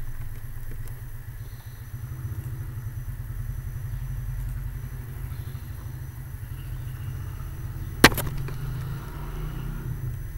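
Steady low rumble, with a single sharp double click about eight seconds in.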